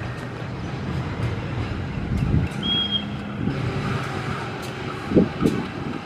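Diesel-electric locomotive moving slowly at shunting speed, its engine running with a steady low rumble. A brief high-pitched squeal comes about halfway through.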